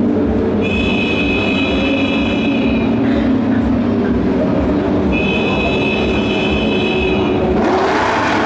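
Race car engines droning steadily, with a high steady whine that comes in twice for about two seconds each time. Near the end a car passes close by, its noise swelling and then dropping in pitch.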